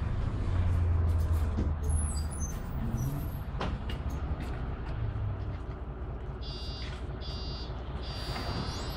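Interior ride noise of a Mercedes-Benz Conecto LF city bus on the move, its OM926LA diesel engine and road noise giving a low drone that is loudest in the first couple of seconds and then eases. Near the end a high-pitched tone sounds in three short pulses.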